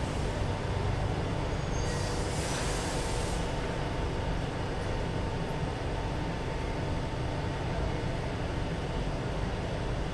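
Metro train rumbling steadily, with a brief hiss about two seconds in.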